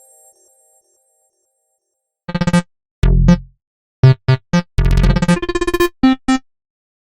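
Android 15 AOSP ringtone: a synthesized melody of short notes, some with deep bass, that starts about two seconds in after a pause and stops a little before the end. At the very start the last notes of the previous ringtone fade out.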